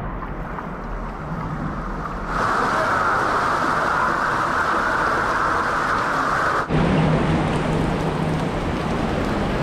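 Rushing water of a river and waterfall in a narrow rock canyon, a steady loud hiss. Its tone shifts abruptly twice, about two seconds in and again about two-thirds of the way through.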